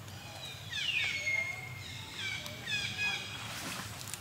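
High-pitched animal calls: a falling cry that settles into a long held note, then a run of short downward-sweeping chirps repeated several times.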